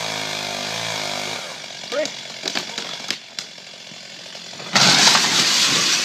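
Chainsaw engine running steadily, then cutting out about a second and a half in. A few sharp knocks and a short shout follow, then a loud burst of rushing noise starts suddenly near the end.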